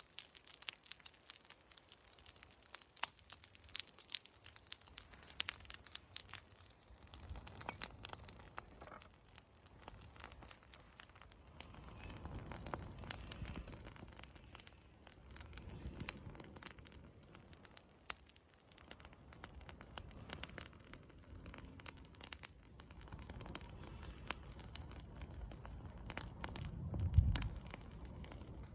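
Straw and dry leaves burning in an open pile, crackling with many small irregular pops. Wind gusts rumble low on the microphone now and then, the strongest near the end.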